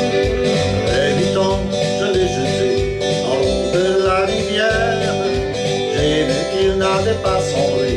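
A man singing with country-style backing music led by guitar.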